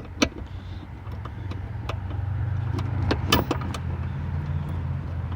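A motor vehicle engine running with a steady low hum that grows louder over the first two seconds and then holds, with several sharp clicks and taps over it, the loudest right at the start and about three seconds in.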